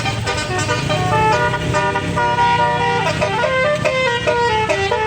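Indonesian bus's basuri telolet horn, a multi-tone musical air horn, playing a quick melody of stepped notes over the low rumble of the bus engine running.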